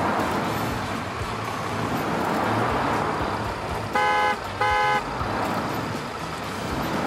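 Steady running noise of a motor vehicle with two short horn toots close together about four seconds in.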